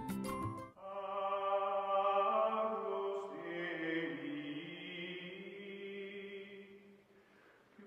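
Background music: a few sharp struck notes, then a long held chant-like vocal drone that fades away near the end.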